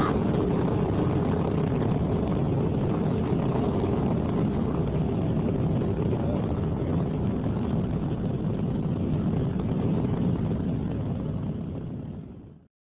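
Low, steady rumble of a Titan IV rocket as it breaks apart in an explosion about 40 seconds into flight, fading away near the end.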